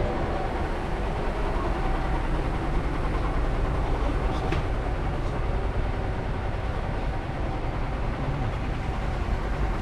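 Steady low rumble of a moving vehicle, with a faint steady tone over it.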